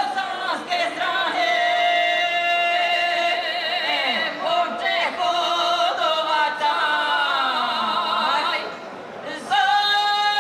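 Two women singing a folk song together into microphones, unaccompanied, in long held notes that waver in pitch; they break off briefly near nine seconds and come back in.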